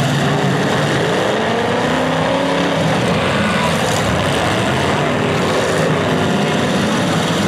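Engines of several demolition derby cars running and revving at once, their pitches rising and falling over one another in a steady, loud din.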